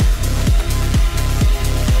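Electronic dance background music with a heavy kick drum beating about twice a second.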